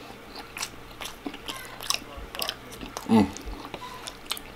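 A person eating close to the microphone: biting and chewing food with scattered wet mouth clicks. About three seconds in comes one short, loud throaty sound that falls in pitch.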